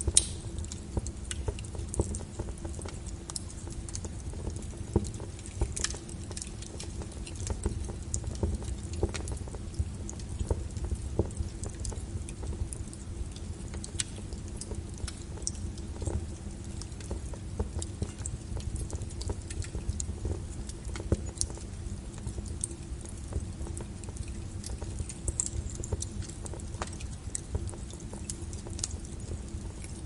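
Wood fire crackling: irregular sharp pops and snaps over a low, steady rumble of burning, with a louder snap right at the start.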